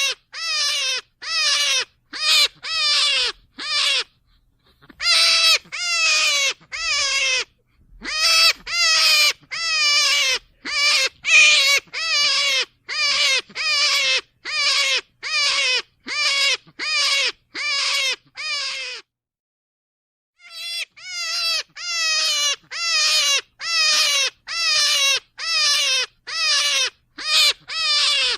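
Rabbit calling over and over: short, high cries that each fall in pitch, about two a second, broken by short pauses about four and seven seconds in and a longer one at about nineteen seconds.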